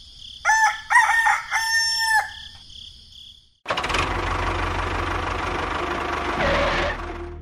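A rooster crows once, a few short pitched notes ending in a held note that falls at the end. About three and a half seconds in, a loud, steady engine-like rumble with hiss starts and runs for about three seconds.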